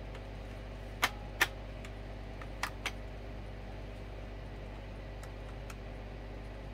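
Sharp clicks and light taps of small parts of a record player's turntable drive being handled and fitted: two louder clicks about a second in, two more just before three seconds, and a few fainter ones later, over a steady low hum.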